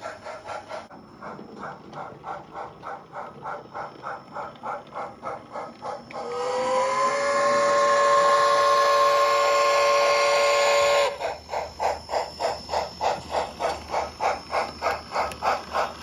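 Sound unit of an HOn3 model Colorado & Southern Mogul steam locomotive: steady exhaust chuffs, then about six seconds in a long steam whistle that sounds for about five seconds over a hiss, then the chuffing resumes, a little faster, at about four a second.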